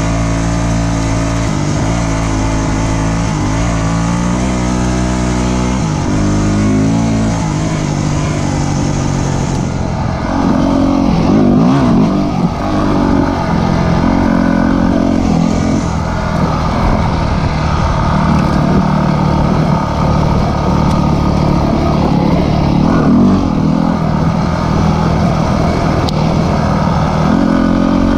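Dirt bike engine running under way, its pitch rising and falling as the rider works the throttle and gears; a little louder and rougher from about a third of the way in.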